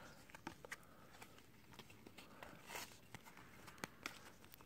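Faint clicks and soft swishes of trading cards being flipped through by hand, one card after another.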